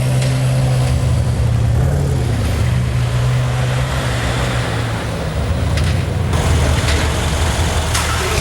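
Supercar engine running at low revs, a steady deep note that rises and falls slightly about two seconds in.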